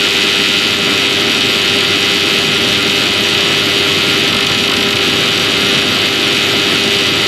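Black MIDI on a MIDI piano synthesizer: nearly every piano key sounding at once, a dense, steady wall of piano noise with no melody, one tone held through it.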